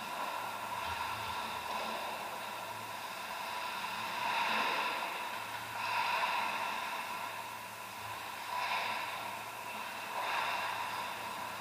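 Ice hockey rink ambience: a steady hiss and hum, with four brief swells of louder noise that rise and fade.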